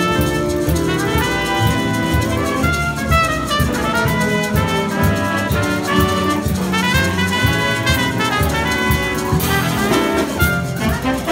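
Jazz big band playing, with a trumpet standing out over trombones, saxophones and drum kit.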